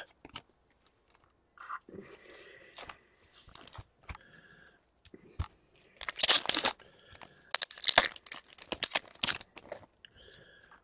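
Foil trading-card pack being torn open and its wrapper crinkled. The loudest tearing comes about six seconds in, followed by a quick run of sharp crinkles and clicks as the cards are pulled out and handled.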